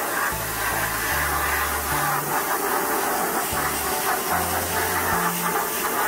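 Pressure-washer jet hissing steadily as it blasts the grille and coil of an air conditioner outdoor unit, over background music with a stepping bass line.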